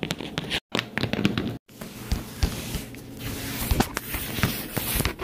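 Scattered light clicks and taps of small plastic toy horse figures being handled and set down on a laminate floor, with handheld camera handling noise. The sound cuts out twice briefly in the first second and a half.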